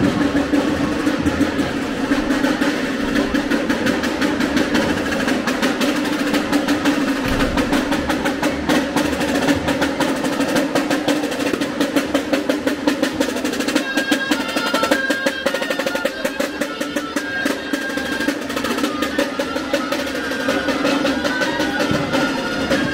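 Festival street band playing. Snare drums keep up fast rolls and strokes throughout, and a high melody joins them about fourteen seconds in.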